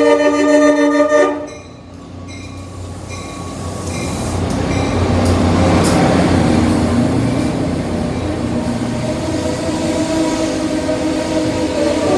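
Diesel train's multi-tone air horn finishing a long blast and cutting off about a second in, then the train rumbling and clattering in, growing louder, with a steady whine in the second half as it comes into the station.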